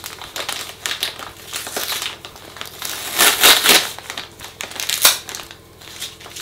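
Adhesive tape being peeled off a plastic bag of pellets, the bag crinkling and crackling as it is handled. There is a louder stretch of crackling a little after the middle and one sharp crack near the end.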